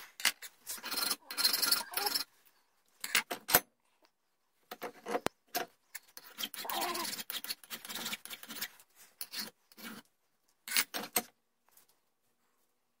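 Metal hand files and small tools handled on a wooden workbench: irregular short scrapes and rubs with a few sharp clicks, broken by pauses.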